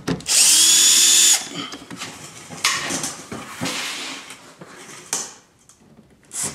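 A small electric ratchet-style driver spins for about a second with a slightly rising whine, backing a T20 screw out of a car's plastic underbody belly pan. Lighter clicks and rattles of tool and fastener handling follow.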